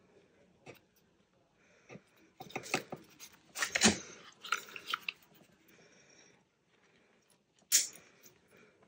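Rustling and clicking as a card tag and a plier-style hole punch are handled. Near the end comes one sharp snap as the punch is squeezed through the tag to make a hole for an eyelet.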